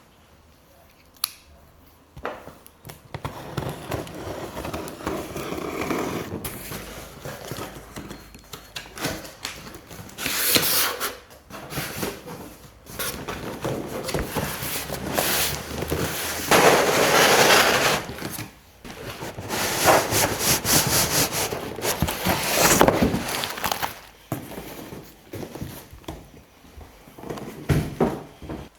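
Shipping package being handled and opened by hand: irregular rustling, scraping and crackling of cardboard and packing material, with a sharp click about a second in.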